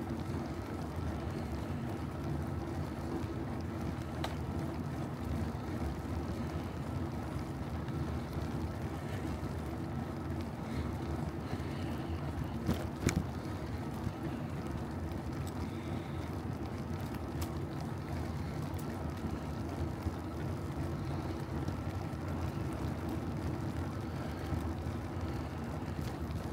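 Steady rumble of wind and road noise from riding a bicycle, with a couple of sharp knocks about halfway through.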